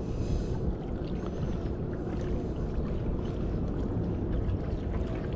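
Steady wash of seawater lapping against rocks, with a low rumble of wind on the microphone.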